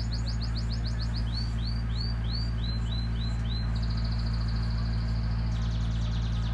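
Birds singing over a steady low hum. First comes a quick run of chirps, then slower curved whistled notes about two a second, then a high, even trill from a little before the middle.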